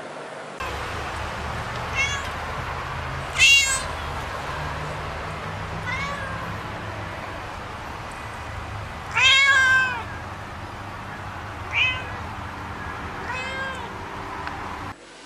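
Domestic cat meowing about six times. The meows are short and high, with a loud, longer one just past the middle, over a steady low hum.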